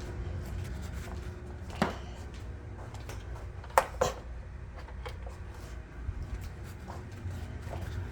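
Gas furnace running after being switched back on, with a steady low hum. A few sharp clicks and knocks come about two seconds in and around four seconds in.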